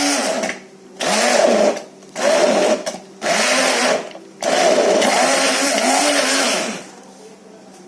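Electric blender grinding sorrel (gongura) leaves with a little water, run in short pulses of about a second each with a longer run of about two seconds near the end. The motor whirs up and winds down with each pulse, grinding the leaves to a coarse paste.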